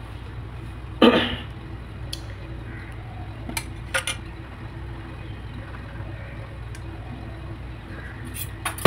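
A steel bowl and spoon handled on a kitchen counter after pouring curd, over a steady low hum: a short knock about a second in, then a few light clinks around four seconds and another near the end.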